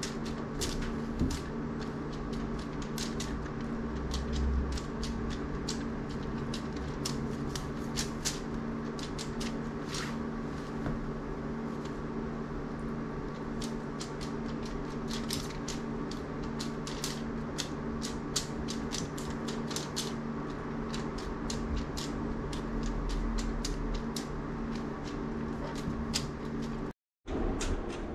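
A feather wand cat toy being flicked and waved for a cat to chase, with many irregular light clicks and rustles over a steady room hum. The sound cuts out for a moment near the end.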